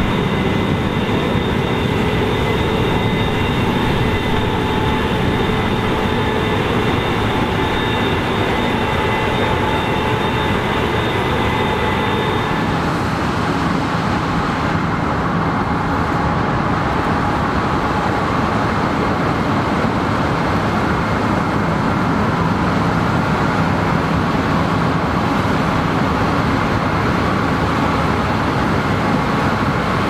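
Combine harvesters running while harvesting corn: a Case IH 8250 combine's engine and threshing gear make a steady drone with high, steady whines. About twelve seconds in the sound changes to a rougher, noisier rumble without the whines, from a John Deere combine harvesting.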